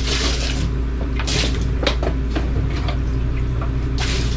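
Shovels scraping and slapping through wet concrete mix in short strokes, about one every second or two, over a steady low hum.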